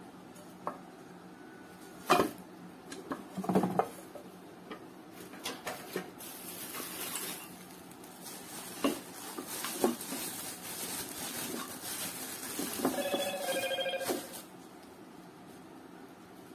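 Aluminium pans knocking and clanking against each other a few times, then bubble wrap rustling and crinkling for several seconds as a part is unwrapped, with a brief squeak near the end.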